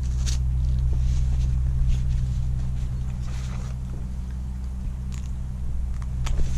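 A steady low mechanical hum made of several low tones, with a few short clicks and scrapes as a small fish is handled and unhooked with pliers.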